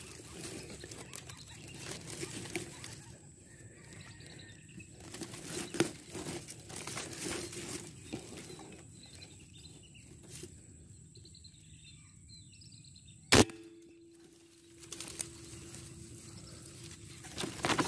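A single sharp air rifle shot about thirteen seconds in, followed by a steady low hum for a few seconds. Intermittent rustling and handling noise surround it.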